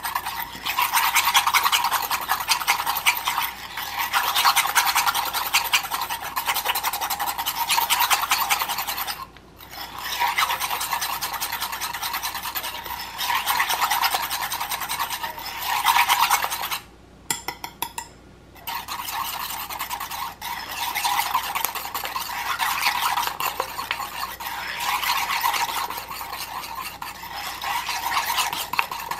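Wire whisk beating thick drained yogurt and chestnut paste by hand: fast, continuous scraping and ticking of the wires against the bowl, with short pauses about nine seconds in and again around seventeen seconds.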